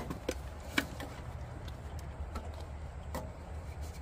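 Steady low drone of an engine running, with a few short, sharp clicks and knocks over it.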